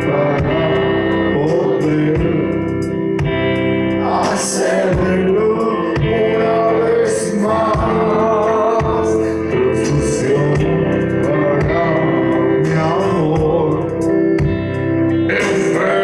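A live band playing through the concert PA: a singer over electric guitars and a drum kit, heard from within the crowd.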